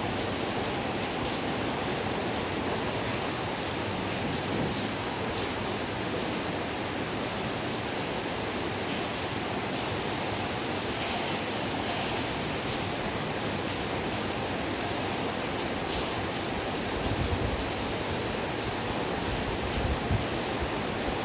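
Heavy rain pouring steadily, a dense even hiss, with a few low rumbles near the end.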